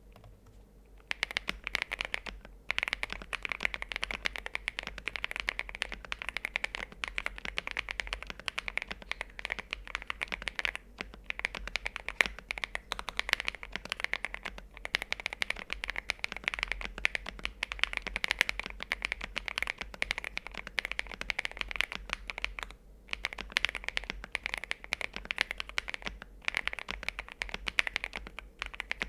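Fast typing on a mechanical keyboard fitted with linear switches: a dense run of key clacks starting about a second in, broken by a few short pauses.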